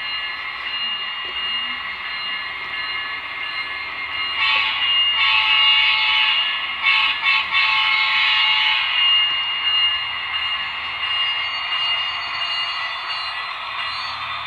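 DCC sound decoder of an HO scale Norfolk Southern SD70ACe model locomotive playing its diesel engine sound through the model's small speaker, with a series of louder horn blasts between about four and nine seconds in, broken by short gaps.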